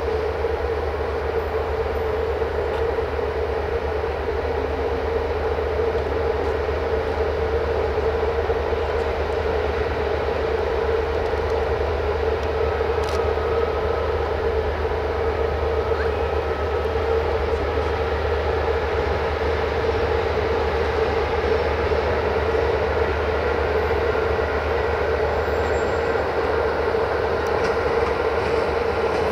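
Steady drone of electric locomotives at a station: a constant whine over a low hum that holds level throughout, with no wheel clatter.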